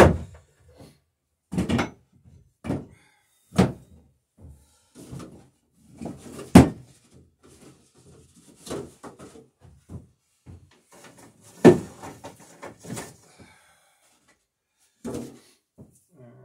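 About ten irregularly spaced knocks and thunks: a hammer striking a nail into the wooden rail of a dory in the first few seconds, then tools and wood being knocked and set down on a workbench.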